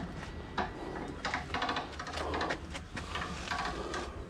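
Irregular scrapes, rubs and light knocks, as of an object being handled and moved about.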